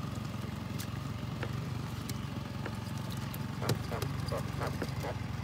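Boat motor idling steadily with a low hum, with a few light ticks and knocks from a catfish being unhooked from a yo-yo line and handled in the boat.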